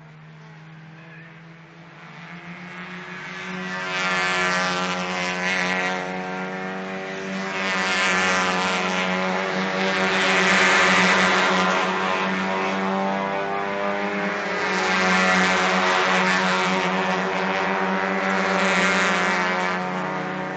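A pack of 1.5-litre hatchback race cars passing at speed one after another, engines at high revs. The sound builds from about two seconds in, then swells and fades several times as each car goes by.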